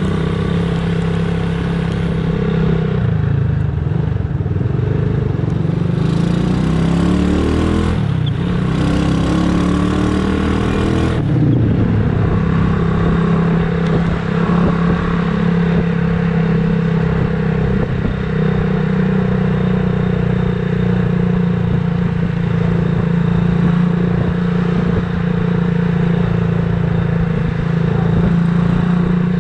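Motorcycle engine running while riding in traffic. The revs fall and climb a few times over the first ten seconds or so, then it settles into a steady cruising note.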